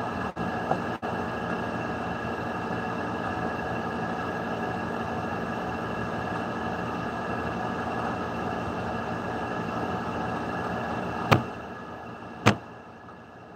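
A steady mechanical hum and hiss with several held tones, broken by two sharp clicks near the end; after the first click the hum drops lower.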